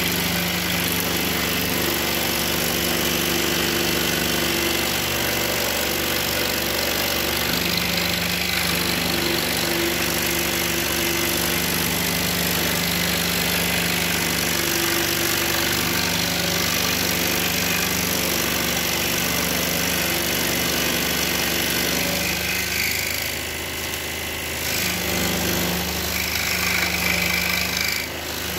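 Pégas 21-inch precision scroll saw running, its reciprocating blade cutting a thin wooden board along a paper pattern: a steady motor hum under the rasp of the sawing. The sound dips briefly about three-quarters of the way through.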